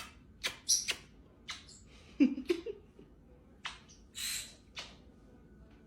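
Pet birds making short sharp clicks and chirps, with a brief low grumble about two seconds in and a short raspy squawk a little past four seconds.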